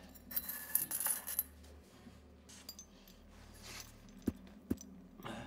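Metallic clinking and rattling: a quick cluster of sharp clinks in the first second and a half, then two single sharp clicks near the end, over a low steady hum.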